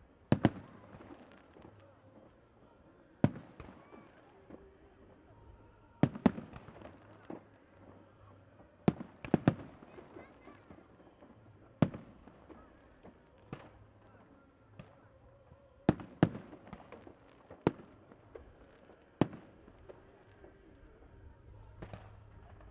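Aerial firework shells bursting: sharp booming reports at irregular intervals of one to three seconds, some coming in quick pairs.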